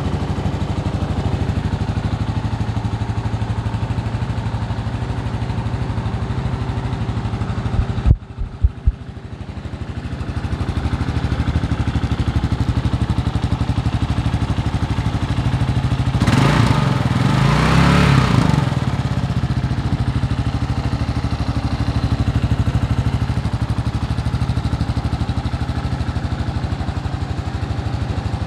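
2023 Kawasaki KLR650's single-cylinder four-stroke engine idling steadily, with a brief break and a few sharp knocks about eight seconds in. Around sixteen seconds in it is revved once, rising and falling back to idle.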